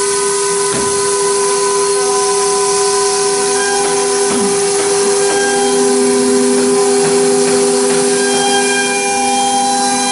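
The spindle of an OMNI 1325 CNC router runs with a steady whine of several held tones. A fine engraving bit cuts a groove into a board, adding a hiss of cutting noise.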